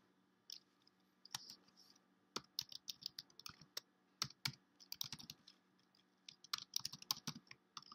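Typing on a computer keyboard: faint key clicks in quick, irregular bunches with short pauses between them.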